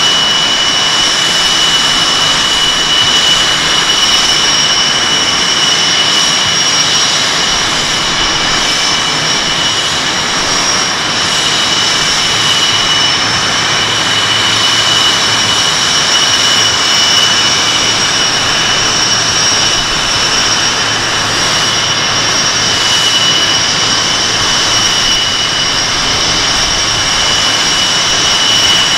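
F/A-18 Hornet's twin jet engines idling: a steady rushing noise with a constant high-pitched whine on top.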